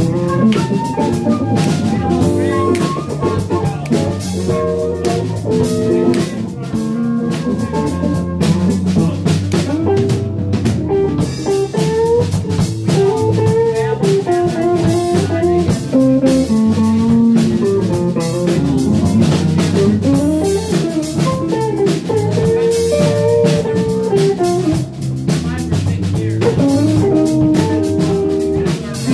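Live band playing: electric guitar, drum kit and Fender bass guitar, with a melody line moving over the steady beat.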